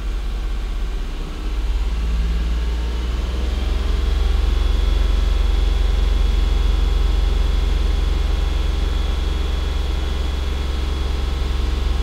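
2011 Mitsubishi Endeavor's 3.8-litre V6 running at a raised idle, its speed nudged up about two seconds in and then held steady, with a thin steady whine above the engine hum. The RPM is held up to see whether a lean condition, suspected to be a vacuum leak, improves.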